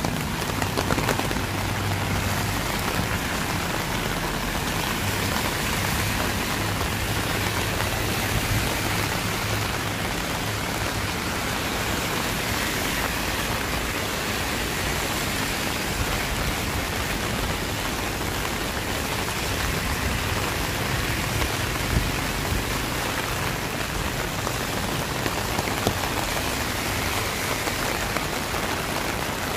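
Steady rain falling in a city street: an even, continuous hiss of drops on surfaces, with a low hum underneath for the first several seconds.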